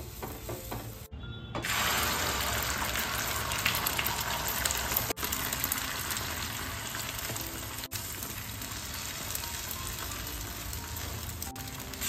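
Beaten egg sizzling on a hot flat iron tawa as it is poured and spread. A steady sizzle cuts in suddenly about a second and a half in and holds.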